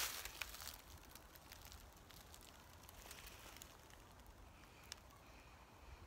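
Near silence: faint outdoor ambience with a low rumble and a few soft ticks.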